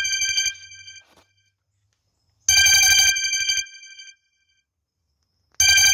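An electronic telephone ringtone rings three times, about three seconds apart, each ring about a second long and made of several steady tones, with silence between rings.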